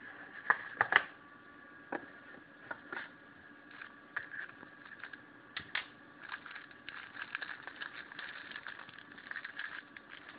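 Unboxing handling noise: a few sharp clicks and knocks as the cardboard box is opened, then the crinkling and rustling of a clear plastic zip-lock bag holding the phone as it is handled, over a faint steady hum.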